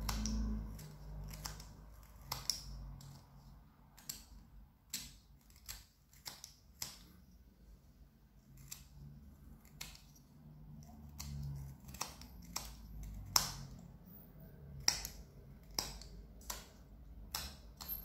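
Small whittling knife slicing chips off a piece of branch wood: a string of irregular, crisp snicks as the blade cuts, over faint low handling noise.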